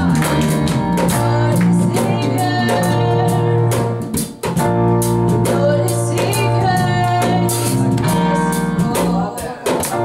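Live band music: keyboard, electric bass and drums playing a steady beat, with a woman's voice singing over it. The sound dips briefly about four seconds in.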